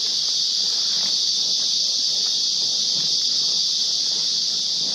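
A chorus of forest insects: a loud, steady, high-pitched buzzing drone that holds level without a break.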